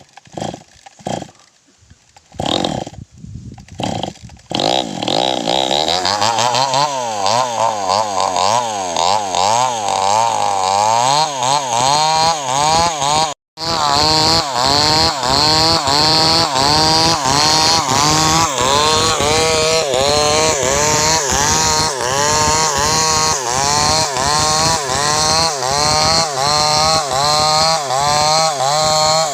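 Chainsaw engine, at first in short bursts, then running hard and continuously as it cuts into wood, its pitch rising and falling about twice a second under the load of the cut. It cuts out for an instant about 13 seconds in, then carries on.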